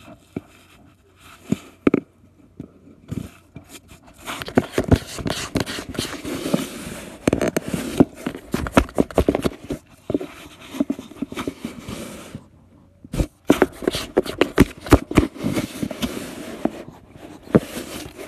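Cardboard scraping and crackling with many small sharp clicks as a cat moves against the inside of a box. A few scattered clicks at first, then dense scraping in two long stretches with a brief pause about twelve and a half seconds in.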